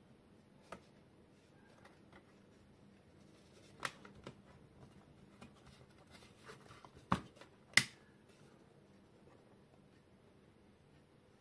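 Scattered sharp clicks and taps as multimeter test probes are touched to a circuit board and the board is handled, about five in all, with the loudest two close together a little past the middle, over a faint steady hum.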